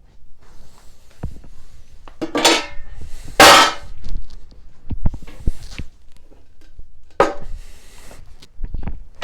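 Metal engine parts and hand tools clanking and scraping during V8 engine disassembly: a string of knocks, some of them ringing, and scraping. The loudest clang comes about three and a half seconds in.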